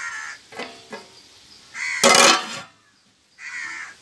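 Harsh bird calls repeating about every one and a half to two seconds, the loudest a little past the middle.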